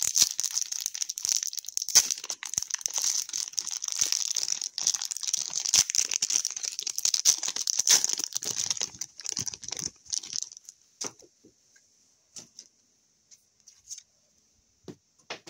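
Wrapper of a hockey card pack crinkling and tearing as it is opened, for about ten seconds, then a few light clicks and taps as the cards are handled.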